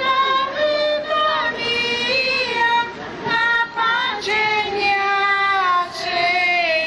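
Women's and girls' high voices singing a processional hymn together in unison, in long held notes that slide from one pitch to the next.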